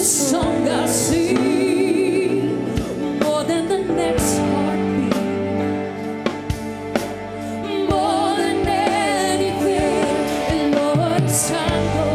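Live gospel worship band playing, with singing in long wavering notes over sustained keys and bass, steady drum hits and several cymbal crashes.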